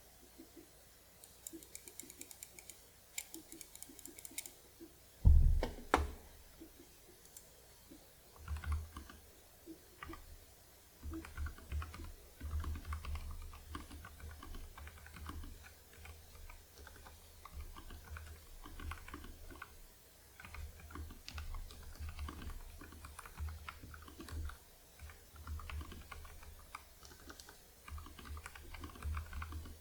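Typing on a Nuphy Air75 mechanical keyboard fitted with taped and lubed Gateron Red linear switches, an irregular run of key strokes that gets dense from about eight seconds in. A few light clicks come first, and one loud thump about five seconds in.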